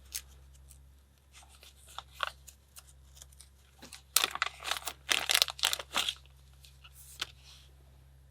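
Packaging crinkling and tearing in short rustling bursts as a small item is unwrapped by hand, busiest from about four to six seconds in, then settling.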